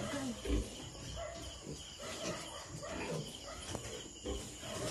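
Piglets calling in short, overlapping grunts and squeals, with a low thump about half a second in.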